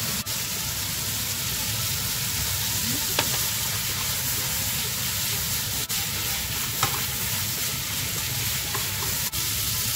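Spaghetti sizzling steadily in a hot frying pan as it is stirred and tossed with tongs, with a couple of short clicks of the tongs against the pan.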